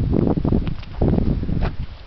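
Wind noise on the microphone with footsteps swishing through grass and fallen leaves, a handful of steps in the first part and quieter toward the end.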